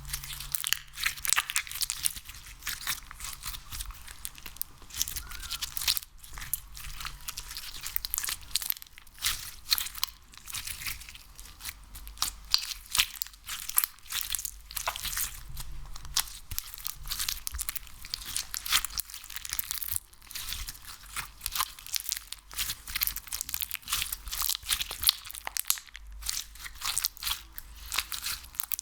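Dense, close-up crackling and crunching of a sticky ASMR material being squeezed and pulled by hand, with a few short pauses.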